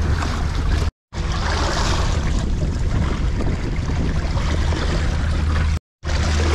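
Sea water washing and splashing against rocks at the waterline, with wind rumbling on the microphone. The sound drops out completely for a split second twice, about a second in and near the end.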